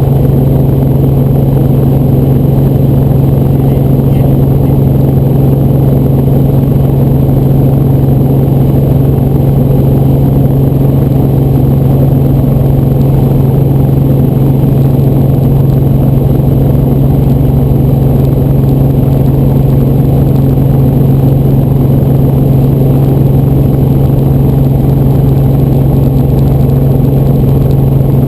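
Helicopter engine and rotor drone heard inside the cabin, loud and steady with a strong low hum and no change in pitch.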